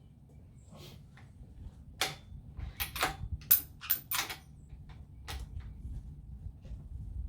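The bolt of a Remington 700 .308 bolt-action rifle being worked: a quick run of about seven sharp metallic clacks, the loudest about three and a half seconds in.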